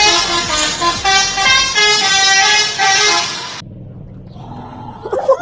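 Bus 'telolet' horn: a multi-tone horn playing a quick tune of stepping notes, cut off suddenly about three and a half seconds in. A quieter low rumble is left, then a brief loud wavering sound near the end.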